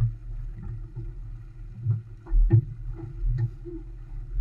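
Olson 25 sailboat under sail: a steady, uneven low rumble of wind and water on the camera microphone. Several knocks from gear on deck come through it, the loudest about halfway through.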